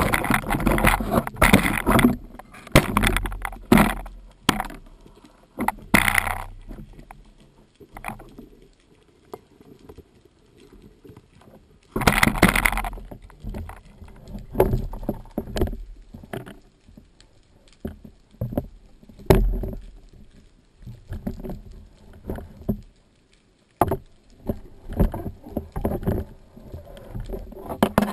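Underwater knocks, clicks and rushes of water picked up by a camera mounted on a wooden speargun as the gun is handled. The sounds are densest in the first few seconds and again a little before halfway, with one sharp knock about two-thirds of the way through.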